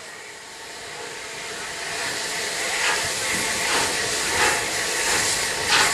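Southern Railway Lord Nelson class 4-6-0 steam locomotive No. E850 'Lord Nelson' approaching and growing louder, steam hissing. From about three seconds in, evenly spaced puffs of steam exhaust come about every 0.7 s.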